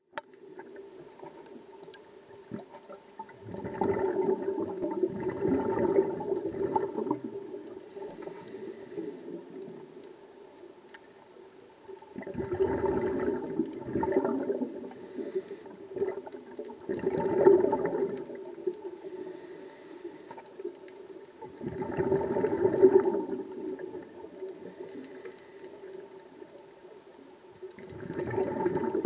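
Scuba regulator heard underwater: five bursts of exhaled bubbles gurgling about every four to five seconds, each lasting one to three seconds, over a steady faint hum.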